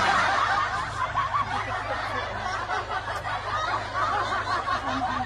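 Many voices laughing at once in a dense, continuous wash of overlapping chuckles and giggles, over a low steady hum.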